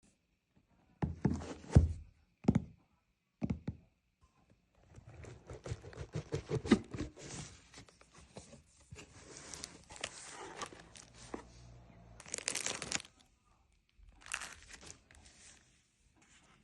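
Gift packaging being handled and torn open: a few knocks at first, then scratchy tearing and crinkling of paper or plastic, with two short sharp rips near the end.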